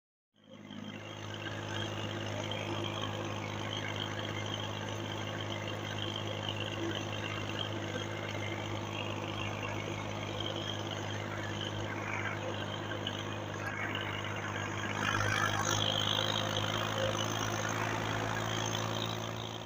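A Massey Ferguson 240 tractor's three-cylinder diesel engine runs steadily while driving on the road, pulling a trolley loaded with sugarcane. The sound cuts in suddenly about half a second in and grows a little louder near the end.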